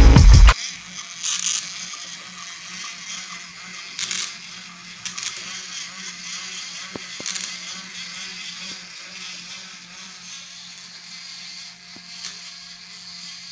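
Battery-powered BRIO wooden toy trains running along wooden track: a small electric motor's steady whir with the wheels rolling and rattling over the track, and a few short clacks.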